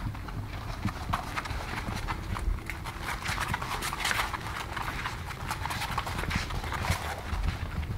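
English bulldog puppies' claws and paws clicking on a hard floor as they run and scramble about, many quick irregular clicks throughout.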